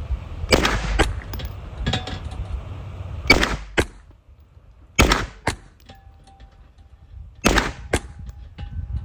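Four single shots from a POF-5 9 mm submachine gun, spaced one and a half to two and a half seconds apart, each followed about half a second later by a second sharper crack.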